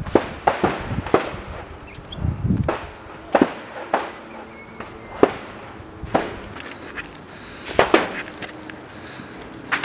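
Footsteps climbing wooden railroad-tie steps: about a dozen sharp knocks of shoes landing on the timber, at an uneven pace.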